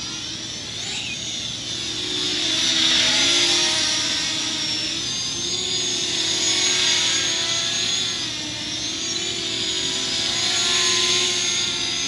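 Parrot Anafi quadcopter drone's propellers whining in flight in sport mode, the high pitch wavering up and down as it manoeuvres. The sound swells and fades as the drone flies nearer and farther.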